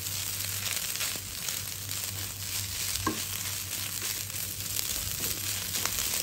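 Fried rice and leafy greens sizzling in a hot non-stick pan, stirred and turned with a silicone spatula, giving a steady hiss with faint scrapes. The greens are being cooked until they wilt.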